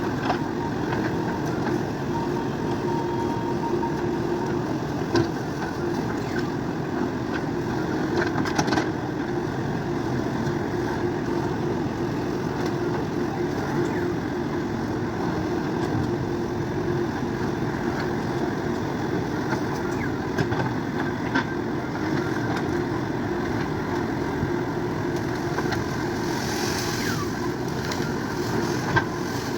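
JCB 3DX backhoe loader's diesel engine running steadily, with a few sharp knocks and a short hiss a little before the end.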